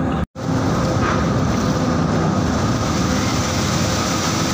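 Seawater washing and rushing across a ferry's car deck over a steady low rumble of the ship's machinery. The sound cuts out completely for a moment just after the start.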